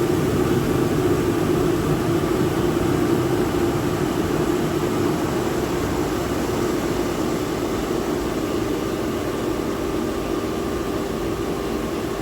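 Commercial boiler burner's combustion air fan running steadily as the burner cycles through its combustion air and damper sequence: a continuous rushing hum that eases slightly in loudness.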